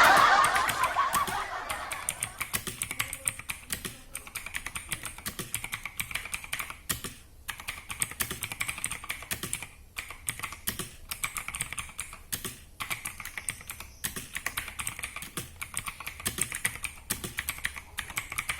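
Steady, fast typing on an Armaggeddon MKA-3C mechanical keyboard with Outemu blue switches, each key giving a sharp, clicky snap, with a few brief pauses. A louder noisy burst at the very start fades away over the first second or two.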